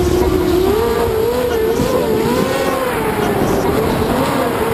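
Racing quadcopter's brushless motors (Cobra 2204 2300 kV on 5x4 Gemfan props) heard from its onboard camera: a motor-and-prop whine that rises and falls in pitch every second or so as the throttle changes.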